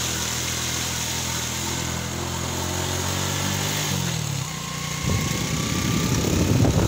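Small motorbike engine running steadily, its pitch climbing as it picks up speed about four seconds in, followed by a rough, irregular rushing noise that grows louder near the end.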